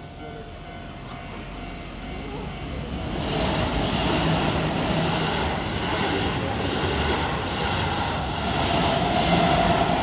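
Keihan 8000 series electric train passing over the level crossing: the rumble and clatter of its wheels on the rails swells about three seconds in and stays loud, strongest near the end. The crossing's warning bell rings under it.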